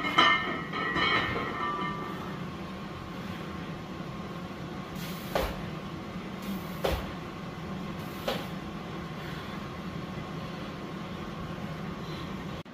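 Loaded barbell set down in a power rack after rack pulls: metal clanks that ring out and fade over the first two seconds. Then a steady low hum with three soft knocks about a second and a half apart.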